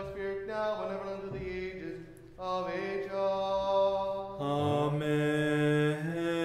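Unaccompanied Orthodox liturgical chanting: voices singing long held notes, with a short break about two seconds in and a lower voice joining about four and a half seconds in.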